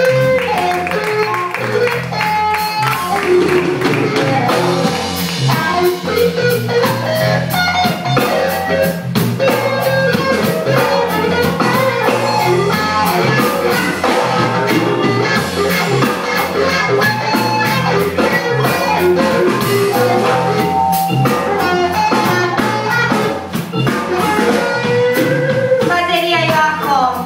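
A live band playing: electric guitar and drum kit with women singing, amplified in a small club.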